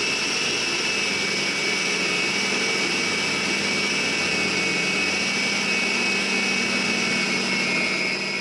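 Small electric food processor running steadily, its motor whining high as it chops kale pushed down the feed chute; it cuts off suddenly at the end.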